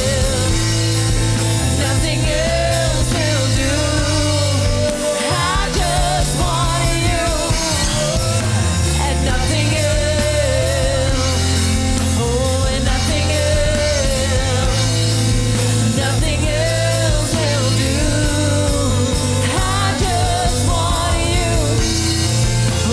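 Church worship band playing with singing: a live praise song with bass, drums and instruments, with sung lines over them.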